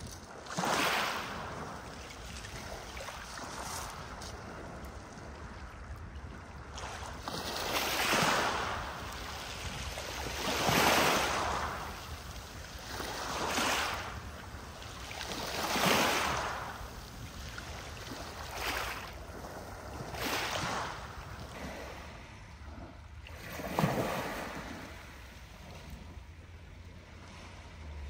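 Strong gusts of wind, each a swelling rush of noise lasting a second or two, coming every few seconds over a steady low rumble.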